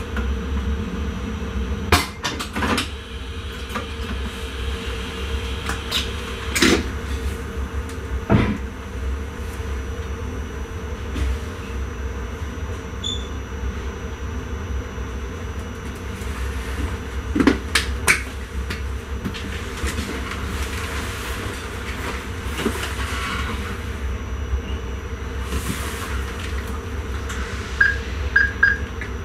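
Inside an electric intercity train's driver's cab: a steady low hum with scattered knocks and clicks, and a few short high beeps near the end.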